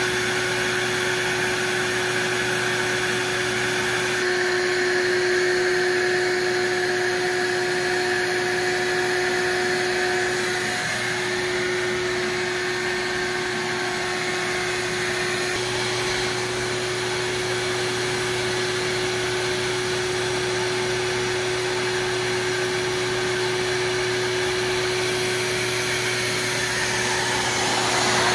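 Ridgid wet/dry shop vacuum running steadily with a constant whine, pulling suction through a DIY MDF vacuum hold-down table.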